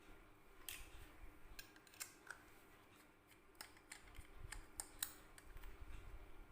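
Faint, irregular small clicks and taps of hands fitting a plastic electrical plug onto a power cable.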